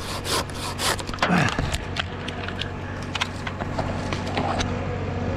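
A pruning handsaw sawing wood with quick rasping strokes, about four or five a second, then scattered scrapes and ticks. A short low falling sound comes about a second in, and a steady engine hum runs underneath.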